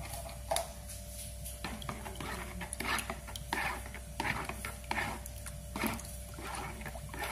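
An egg being stirred into water in a plastic bowl: repeated sloshing and scraping strokes of the utensil against the bowl, roughly one or two a second.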